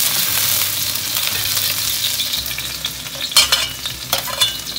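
Minced garlic and chili sizzling in hot oil in a cast-iron wok while a metal ladle stirs them, releasing their aroma. The ladle clanks against the wok a few times near the end.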